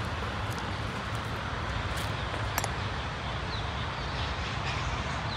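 Vehicle driving along a loose gravel dirt track: steady engine and tyre noise with a low rumble. There are a couple of sharp clicks about two seconds in.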